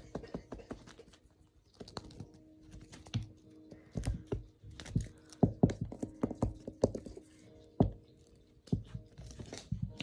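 Irregular clicks and thumps of a cat scrabbling, pouncing and batting a toy bird on a wooden floor, with a steady low hum behind.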